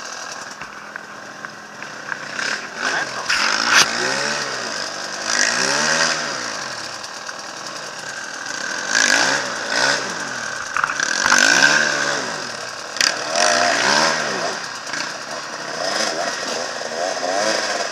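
GasGas enduro motorcycle engine revving up and falling back again and again in short throttle bursts as it picks its way up a rocky climb, with a few sharp knocks.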